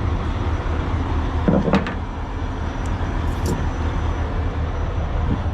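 Semi-truck's diesel engine running with a steady low drone. A short squeak comes about one and a half seconds in, and a couple of faint clicks come near the middle.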